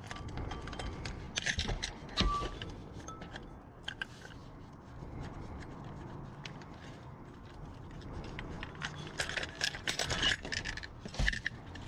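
Loose pieces of scrap metal and glass clinking, knocking and scraping as they are rummaged through and sorted by hand in a dumpster. There is a cluster of knocks with a brief ring about two seconds in, and a busier run of clinks near the end.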